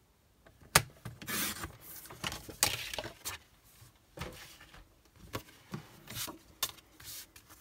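Stampin' Up! paper trimmer cutting cardstock: a sharp click about a second in, then a short scrape as the blade slides through. After that, scattered plastic knocks and paper rustling as the trimmer and card are handled.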